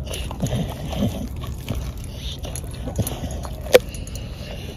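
Bulldog-type dog biting and gnawing at a whole black chicken carcass, with a few short low grunts near the start and one sharp snap about three-quarters of the way through.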